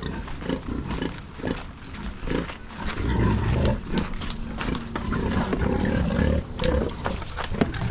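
A dog growling in rough, irregular rumbles.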